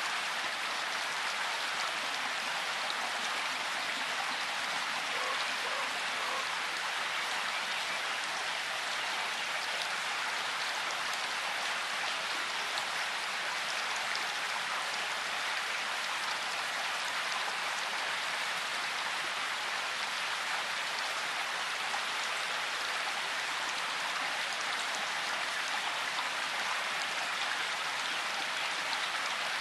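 Steady hiss of tyre and wind noise as a vehicle rolls slowly up a leaf-covered dirt lane, with no engine tone standing out.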